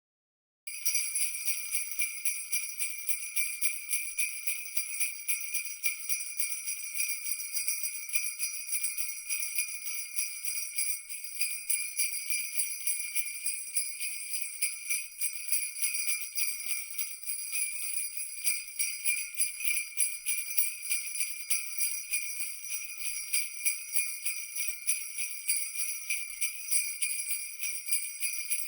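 Jingle bells shaken continuously in a quick, steady rhythm, a bright metallic jingling with a fixed set of ringing pitches. It starts abruptly about a second in.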